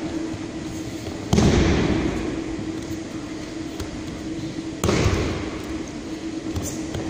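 Two aikido breakfalls, a body slapping down onto tatami mats about three and a half seconds apart. Each impact echoes and fades slowly in a large sports hall.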